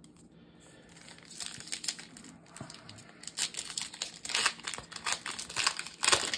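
Foil wrapper of a Pokémon TCG Scarlet and Violet booster pack being torn open and crinkled by hand. It is a dense crackle that starts about a second in and grows louder, with the loudest crinkle near the end.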